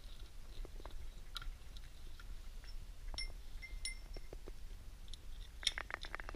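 Metal valve puller tool clicking and scraping inside a John Beam R2020 pump head as a valve seat is wiggled loose. There are a few short metallic rings in the middle and a quick run of clicks near the end.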